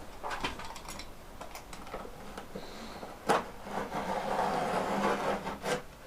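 A knife being drawn through a sheet of Dodo Dead Mat sound-deadening material: scattered clicks, one sharp click about three seconds in, then a longer scraping cut near the end.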